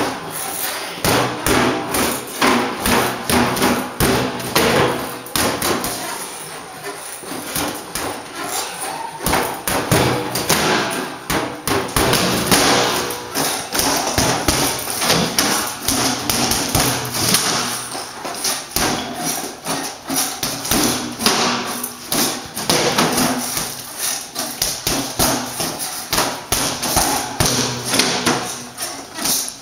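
Boxing gloves repeatedly punching a Protocol freestanding reflex bag: a long run of quick, uneven thuds as jabs land on the ball.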